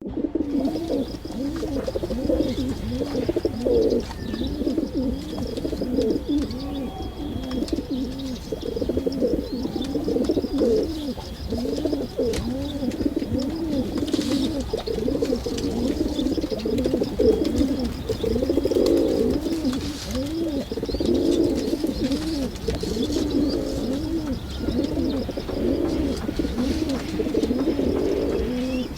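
Several pigeons cooing over one another without a break, their low coos rising and falling in pitch and overlapping, with faint high chirping above them.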